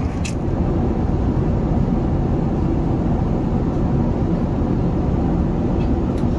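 Airbus A380 cabin noise in cruise: a steady low rumble of airflow and engines heard from a passenger seat, with a short click just after the start and a fainter one near the end.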